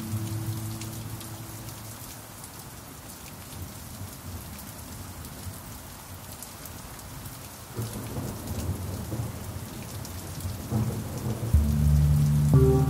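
Steady rain falling on a surface, with a low rumble of thunder about eight seconds in. A pan drum note rings and fades over the first two seconds, and near the end louder pan drum notes are struck, low and ringing with several tones.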